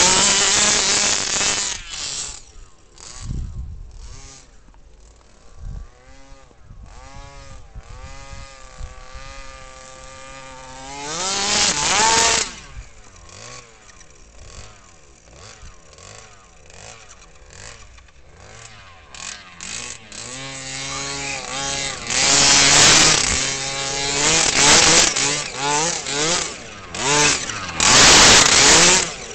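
The 23cc two-stroke gas engine of an RC Bigfoot monster truck with a DDM tuned pipe, revving up and down over and over as the truck drives through snow. It is loudest in full-throttle bursts near the start, about twelve seconds in, and through the last seven seconds. The owner says the engine still needs some tuning.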